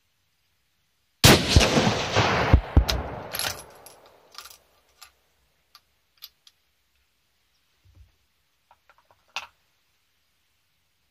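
A single shot from a .22-250 rifle: a sharp crack about a second in, with a long echoing tail that dies away over about three seconds. Then come a few light clicks as the rifle's bolt is worked, with a sharper one near the end.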